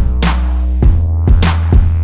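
Electronic background music with heavy sustained bass and a steady drum beat.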